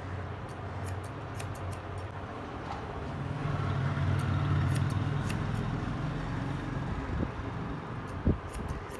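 Barber's steel scissors snipping wet hair in short, sharp clicks, several in quick succession near the start, more in the middle and near the end. Under them runs a steady low hum that grows louder for a few seconds in the middle.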